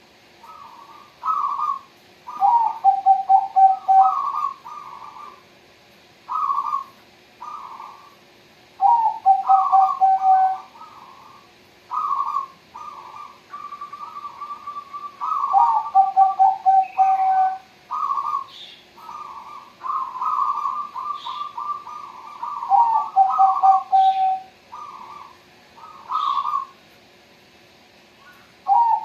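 Zebra doves (perkutut) cooing: repeated short phrases of rapid pulsed notes, several ending in a lower, fast trill, with pauses between phrases.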